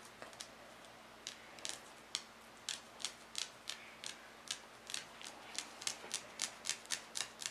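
A series of small, sharp clicks, sparse at first and then coming faster and more evenly, about three a second, through the second half.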